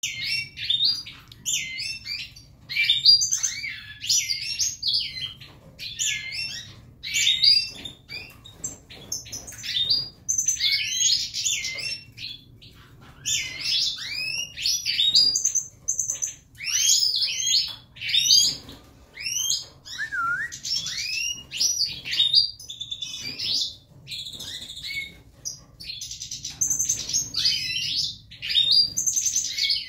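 European goldfinches of the Major type singing: a fast, tinkling twitter of chirps and trills in runs of a few seconds with short breaks. It is the song of goldfinches in full breeding condition.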